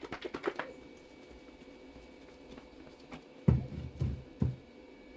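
A bottle of 3D-printing resin being shaken: a quick run of sharp strokes in the first second. Three dull low thumps follow about three and a half seconds in.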